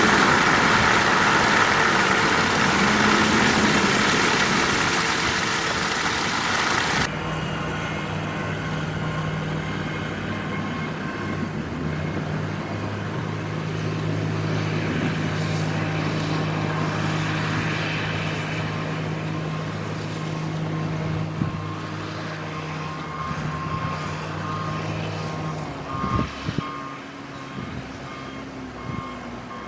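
Loud rushing blizzard wind for the first seven seconds, cutting off suddenly. Then a truck engine runs steadily, and a reversing alarm beeps repeatedly near the end.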